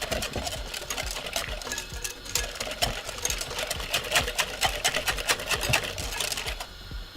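A hand whisk beating cornmeal with coconut milk and milk, the wires clicking and scraping rapidly against the container. It eases off briefly near the end.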